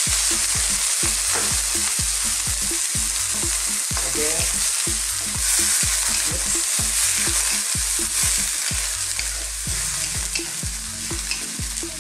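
Vegetables and dried shrimp sizzling hard in a hot oiled wok just after a splash of water goes in, with a wooden spatula scraping and tossing the food in rapid repeated strokes against the wok. The sizzle eases a little near the end.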